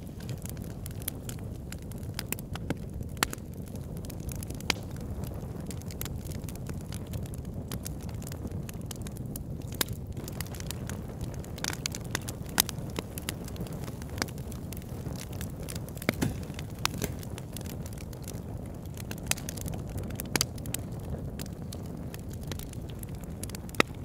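A fire burning: a steady low rushing noise with irregular sharp crackles throughout and a few louder pops.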